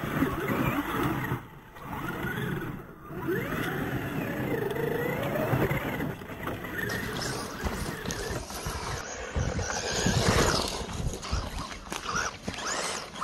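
Electric motor of an LC Racing EMB-WRC RC rally car, converted to rear-wheel drive, whining and rising and falling in pitch with the throttle, over the scrabble of its tyres on dirt and gravel. The motor briefly drops away twice near the start.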